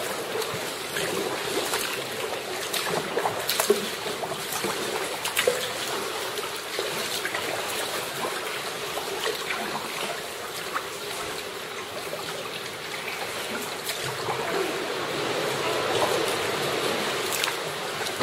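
Sea water sloshing and trickling against rock and kayak hulls inside a narrow sea cave, with short splashes from kayak paddle strokes now and then.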